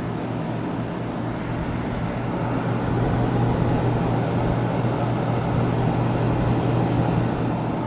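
Kenmore 7500 BTU window air conditioner running on high fan: its Tecumseh AK reciprocating compressor gives a steady low hum under the rush of the fan, getting a little louder about three seconds in. The owner says it sounds really nice.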